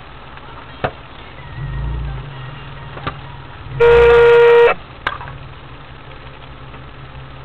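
A car horn sounds once, a steady blast of about a second, over the low steady running of a vehicle engine, with a few light knocks.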